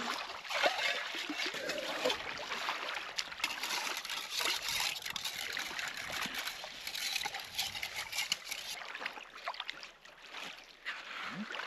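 Water trickling and splashing, with many small irregular splashes.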